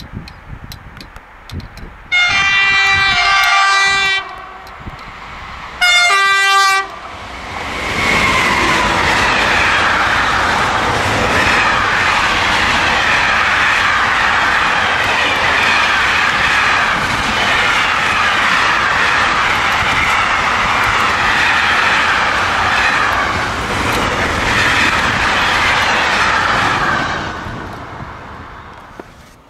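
SNCF BB 27000 electric locomotive with a container freight train: a long horn blast of about two seconds, then a short second blast, followed by the train passing close by for about twenty seconds, wheels clattering along the rails, fading away near the end.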